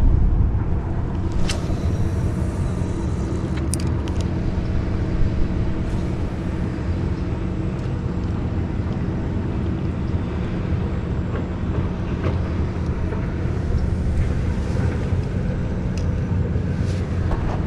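Steady rumble and hum of road traffic on a bridge, with a few sharp clicks about one and a half and four seconds in.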